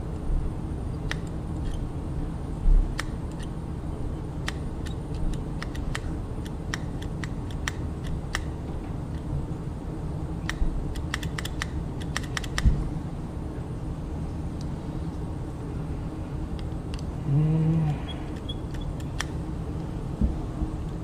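Small metal parts of a sewing machine foot pedal clicking and tapping as they are handled and fitted, with a quick run of clicks about ten seconds in and a couple of louder knocks, over a steady low hum.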